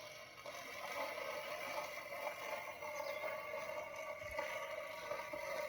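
Robotic lawn mower's electric motor running with a steady hum.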